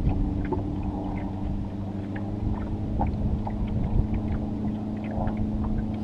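1909 Waterman "Coughing Sarah" rowboat motor, a single-cylinder two-stroke outboard, running steadily.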